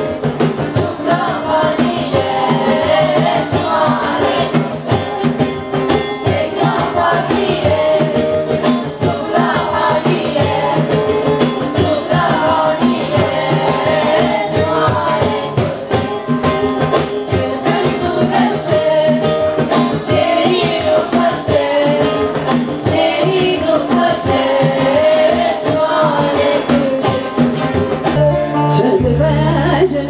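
A group of children and young singers singing a song together over an amplified band with drums keeping a steady beat. About a second and a half before the end the music changes abruptly to a different song.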